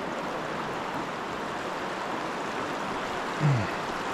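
Steady rushing of a shallow, rocky river's current running over riffles and stones. About three and a half seconds in, a short, low, falling sound briefly rises above it.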